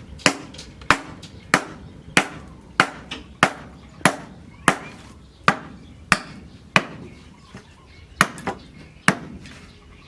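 Blacksmith's hammer striking the axe steel on the anvil in a steady rhythm, about one and a half blows a second. Each blow rings briefly, and a few lighter taps fall between the main blows.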